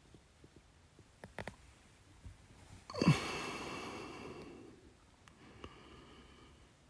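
A person breathing out heavily, a long sigh about three seconds in that fades over a second and a half, winded after running a mile and a half. A few faint clicks come before it.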